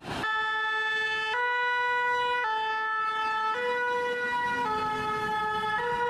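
Fire engine's two-tone siren, stepping back and forth between a lower and a higher note about once a second.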